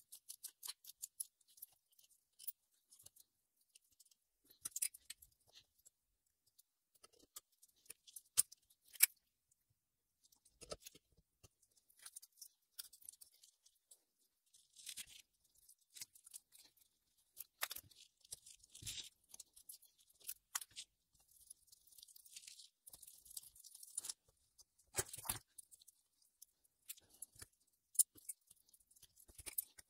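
Scattered small metallic clicks, clinks and scrapes of a screwdriver and locking pliers working on the steel levers and springs of a BMW N42 Valvetronic assembly, with a few sharper knocks, while new torsion springs are fitted.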